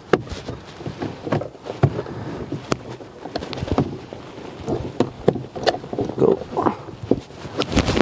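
A flat screwdriver prying the plastic trim off a Dodge Caravan's sliding door: irregular clicks, creaks and scrapes of plastic against metal, with a sharp click near the end.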